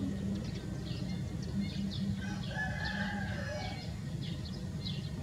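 A rooster crows once, a call of about a second and a half in the middle, over many short high chirps and a low steady background rumble.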